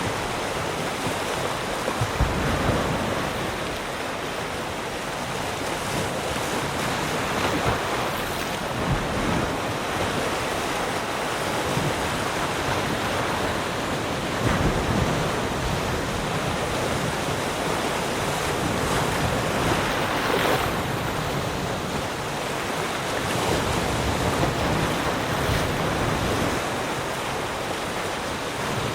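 Ocean waves breaking and washing on a shore, a steady surf with a new swell every few seconds.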